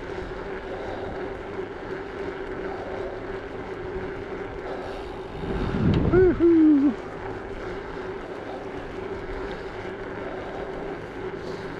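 Bicycle riding along a paved road: a steady hum under a rush of air on the microphone. About six seconds in, a louder low rumble of wind and a brief wordless voice sound.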